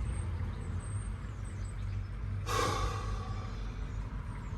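Steady low rumble in the background, with one short, sharp breath out about halfway through from a man choked up with grief.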